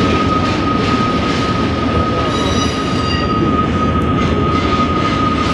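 A long double-stack container freight train rolling through the curves of the Spiral Tunnels, a steady rumble of railcars with a continuous high wheel squeal, joined by a brief higher squeal about two and a half seconds in.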